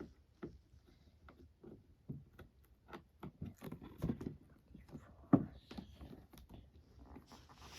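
Irregular clicks, taps and light knocks of hands working at toy packaging, trying to get it open, with a louder knock about four seconds in and another about five seconds in.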